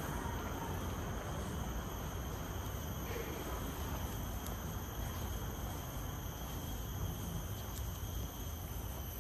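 Insects chirring steadily in a high, unbroken drone, over a low, even outdoor rumble.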